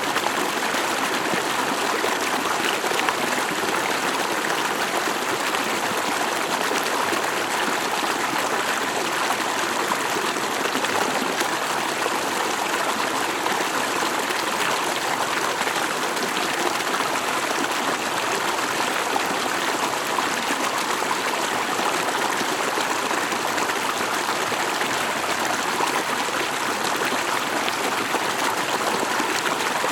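Stream water flowing steadily over rocks, a continuous rushing and babbling.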